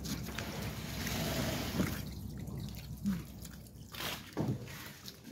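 A person chewing a bite of ripe apple close to the microphone, with wet, crunchy chewing sounds, and a rushing noise over the first two seconds.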